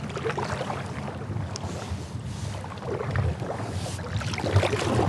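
Kayak paddle strokes swishing through the water twice, with a few dull knocks against the kayak.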